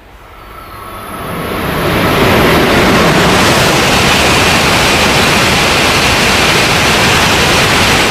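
E2 series Shinkansen running through the station at speed without stopping: a rush of air and wheel noise that builds over the first two seconds, then holds loud and steady as the long train goes by.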